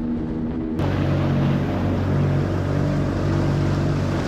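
Outboard motor running steadily as a small boat travels at speed. About a second in, a loud rush of wind and water comes in over the low engine hum.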